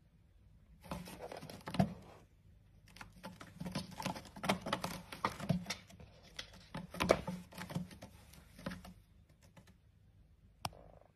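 A cat's claws scratching and raking at a sisal-rope scratching post in quick, irregular strokes, starting about a second in and stopping a couple of seconds before the end. A single sharp click comes near the end.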